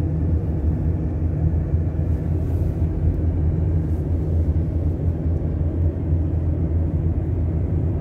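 Steady low rumble of road and engine noise inside a moving car's cabin, cruising on a highway.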